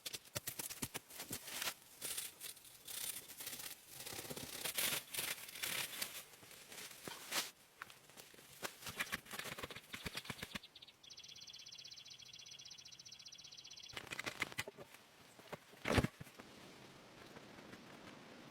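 Irregular rustling and crackling, like things being handled or torn, for the first half. Then a steady, fast-pulsing high buzz for about three seconds that starts and stops abruptly, followed by a few more rustles and one sharper sound near the end.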